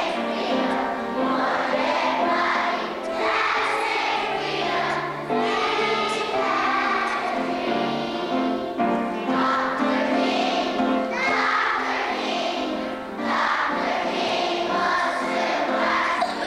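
A children's choir singing a song in unison, sustained notes moving in phrases.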